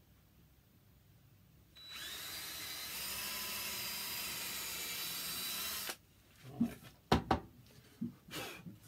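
Cordless drill spinning up with a rising whine about two seconds in, then running steadily as it bores a pilot hole through a wooden board, stopping about four seconds later. A few sharp knocks follow near the end.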